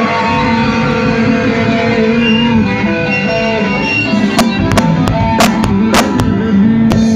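Live rock band playing loud: electric guitars holding notes and chords over bass and drums. From about four seconds in, a run of sharp hits cuts through.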